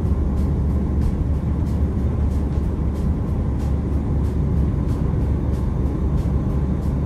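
Steady low road and engine rumble heard from inside a moving car, with music playing over it, marked by a light, regular beat about three times a second.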